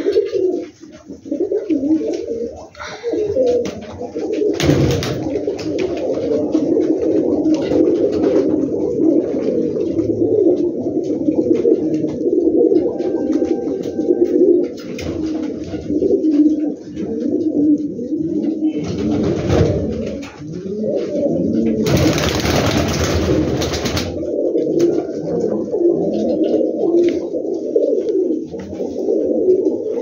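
Domestic pigeons cooing continuously, the calls overlapping without pause. A few short bursts of noise cut across them, the longest lasting about two seconds a little past the middle.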